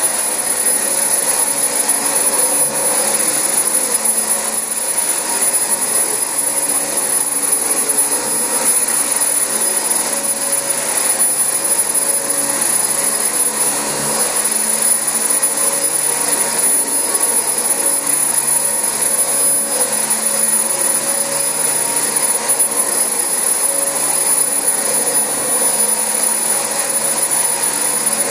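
Dyson DC25 upright ball vacuum cleaner running steadily on carpet, with a continuous high-pitched whine over the motor and airflow noise.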